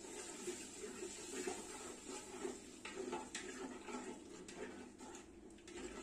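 Metal spoon stirring and scraping a wet, spiced onion mixture in an aluminium cooking pot: irregular light scrapes and clicks against the pot.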